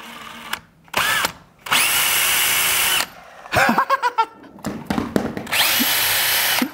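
Cordless drill spinning a 3D-printed scooter wheel through its shaft, run up in three goes: a short blip about a second in, a longer run just after, and another near the end. Each run starts with a rising whine that settles into a steady high tone.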